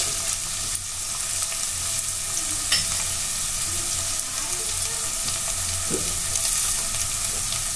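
Sliced carrots and green capsicum sizzling in hot oil in an open pressure cooker. A metal spoon scrapes and clicks against the pan a couple of times in the first few seconds of stirring.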